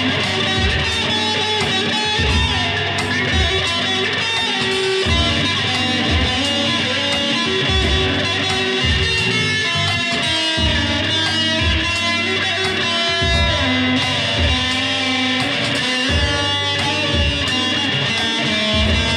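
Electric guitar played without pause, a continuous instrumental passage.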